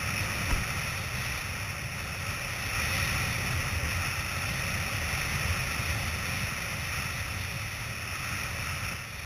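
Wind buffeting the microphone over the steady hiss and rush of water under a board planing across choppy sea, with a brief knock about half a second in.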